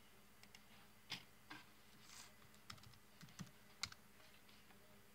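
Typing on a computer keyboard: a handful of separate keystroke clicks, irregularly spaced, with two sharper strokes about a second in and near four seconds in.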